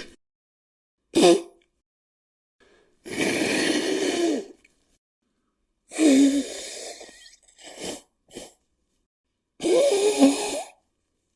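A person blowing their nose into a tissue, with a honking nasal tone in each blow. A short blow comes about a second in, then three longer blows of one to two seconds each, with brief sniffs between the last ones.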